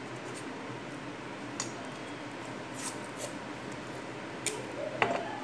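Light handling noises of foam craft materials and masking tape: a few short, soft clicks and rustles over a steady room hiss, with one sharper click near the end.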